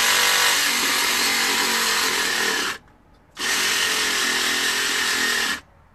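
Small battery-powered carving saw cutting into a pumpkin. It runs in two spells, with a short pause about three seconds in.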